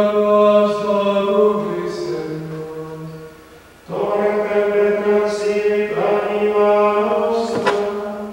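Monks chanting the office in plainchant: two long sung phrases, each held on a steady reciting note and dropping at its close, with a short pause about four seconds in.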